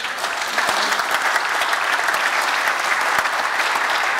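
A large audience applauding, many hands clapping together in a dense, steady stream.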